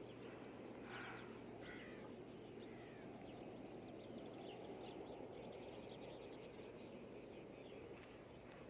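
Faint open-air ambience over a low hiss: a crow caws about one second in and again about two seconds in, and faint high chirps and ticks follow.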